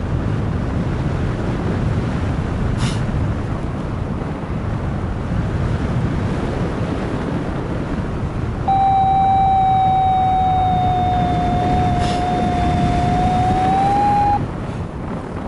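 Wind rushing over the microphone in flight. From about 9 s to 14 s a flight variometer gives one continuous electronic tone, which sags slightly and then rises just before it cuts off.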